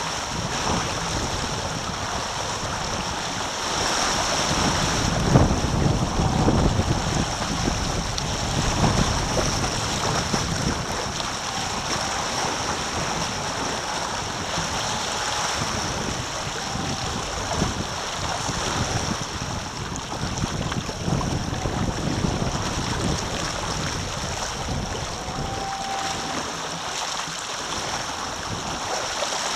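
Wind buffeting the microphone and water rushing and splashing past the hulls of a Taipan catamaran sailing at speed, a steady noise with no pauses.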